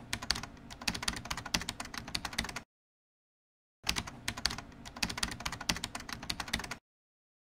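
Quick computer keyboard typing, a dense run of keystrokes lasting over two seconds, a pause of about a second, then a second run of about three seconds that stops abruptly.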